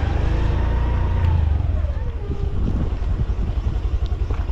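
Engine of a small motor vehicle: its pitch falls as it slows, and it then idles with a steady, regular throb.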